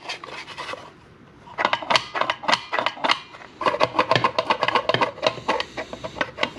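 3D-printed plastic Oreo cookie dispenser clicking and rattling as its lever is worked back and forth, in two runs of rapid clicks, the first starting about one and a half seconds in.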